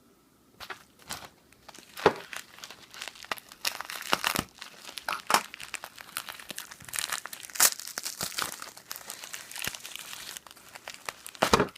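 Stylus packaging being handled and torn open by hand: an irregular run of crinkling, crackling and sharp snaps of plastic and cardboard, loudest about two seconds in and near the end.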